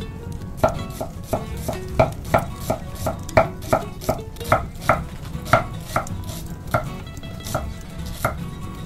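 Kitchen knife chopping an onion on an end-grain wooden cutting board: sharp, steady knocks of the blade hitting the board, about three a second, spacing out near the end.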